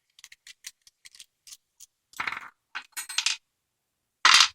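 Small metal clicks of a padlock and screwdriver being handled, then three metallic clatters like coins dropping as small metal pieces hit a hard surface, the last and loudest near the end.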